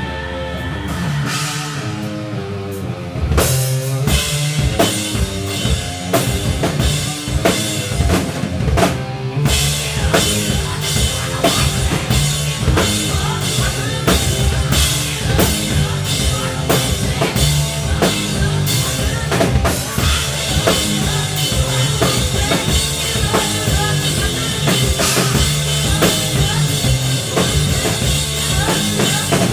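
Live rock band playing, heard from right beside the drum kit so the drums are loudest: bass drum, snare and cymbals over guitar and bass. The first few seconds are held notes with only a few hits, then the full drum beat comes in.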